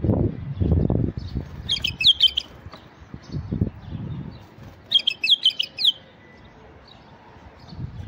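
A male white-eared bulbul singing two short phrases of rich, quickly changing whistled notes, about two seconds and five seconds in. Low rumbling noise comes between the phrases.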